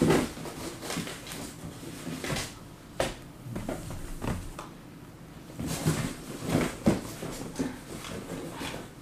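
Handling noises: irregular taps, knocks and short rustles of objects being moved about on a table.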